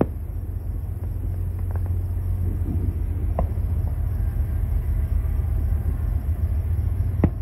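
Steady low rumble of a distant train, with a few faint sharp pops of distant fireworks, the loudest near the end.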